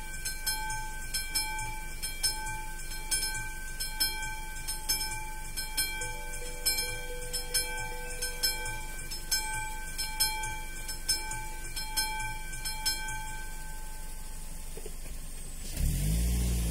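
Level-crossing warning bell ringing in a steady rhythm of about two strikes a second, a ringing tone under each strike, until it stops about 13 seconds in as the crossing clears. Near the end a car engine comes in loudly.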